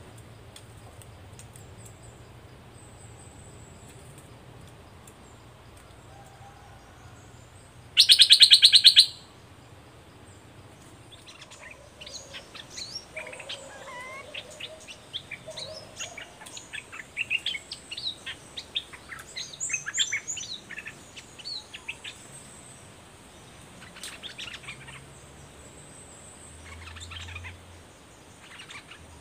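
Bulbuls calling: quick, bubbly runs of chirping notes from about eleven to twenty-two seconds in, then shorter bouts of calls near the end. About eight seconds in, a loud, harsh buzz lasts about a second.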